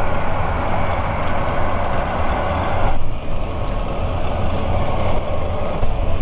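Film sound effects of a city on fire after an earthquake: a steady low rumble with a noisy rush over it. About three seconds in, the rush drops away and a thin high squeal comes in and holds for about three seconds.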